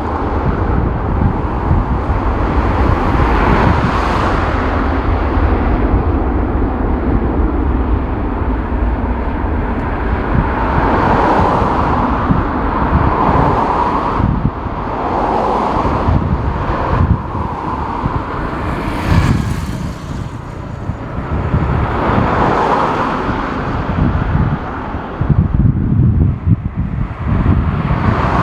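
Strong, gusty wind buffeting the microphone, in surges that swell and fade every few seconds over a continuous low rumble.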